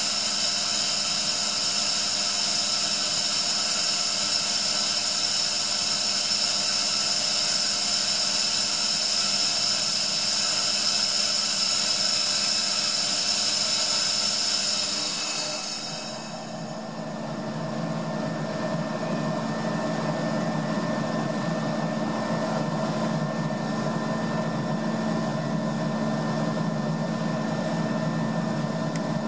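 Atlas Copco ZT 22 two-stage oil-free air compressor running loaded, a steady high-pitched whine over hiss. About fifteen seconds in it is unloaded by hand: the whine falls away with a short drop in pitch and level, and the machine runs on unloaded with a lower, steady hum.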